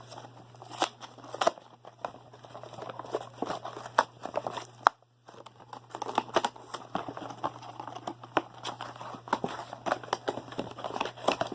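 Packaging crinkling and crackling as a blind box and the bag inside it are opened and handled, in irregular short crackles and clicks, with a brief pause about five seconds in.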